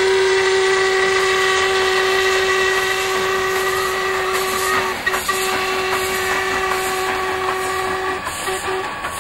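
Narrow-gauge steam locomotive's whistle blowing one long steady blast that falters briefly about halfway and stops just after 8 s, then two short toots, over the clatter of the train's coaches passing.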